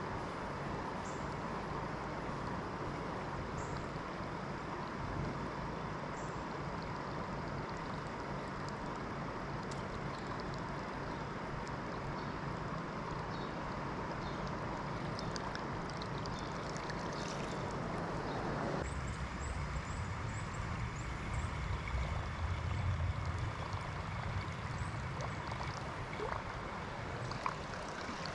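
River water rushing steadily over shoals. About two-thirds of the way through the sound shifts to a heavier low rumble.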